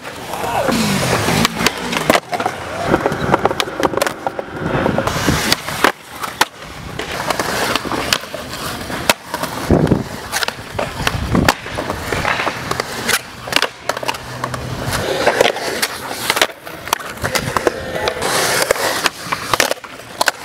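Skateboard wheels rolling on concrete, broken by repeated sharp clacks of the board popping and landing, with scrapes of the trucks or deck against ramp edges.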